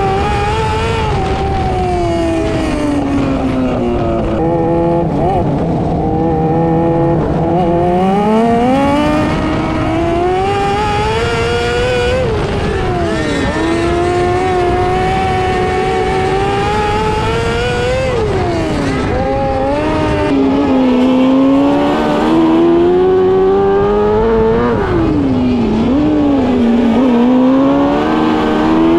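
600cc micro sprint racing engine at full song, its pitch climbing for several seconds and then dropping sharply as the throttle is lifted, over and over.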